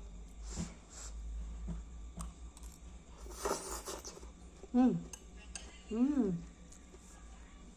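Metal spoon and fork clinking against a glass bowl while eating noodle soup, with a breathy blow on a spoonful of hot broth about three and a half seconds in. Two short hummed "mmm" sounds of enjoyment follow, about a second apart, louder than the rest.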